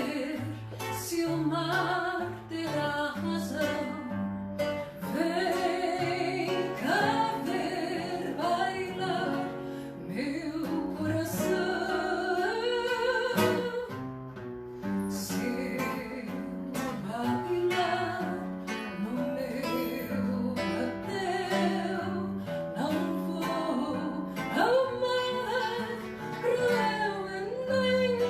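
A singer's voice with vibrato, sung over acoustic guitar accompaniment.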